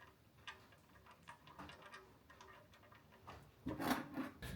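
Scattered light ticks and rubbing of hand tools working at the engine's oil drain plug, then a louder noisy burst about three and a half seconds in.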